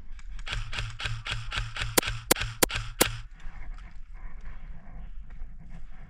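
Airsoft gunfire: a string of sharp shots at about three to four a second, with four louder, sharper cracks near the middle. It stops about three seconds in.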